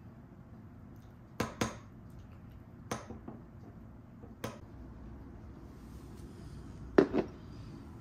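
Metal spoon clinking against a ceramic bowl and a tin can while scooping out wet cat food: a few separate sharp taps, some in close pairs, the loudest pair near the end.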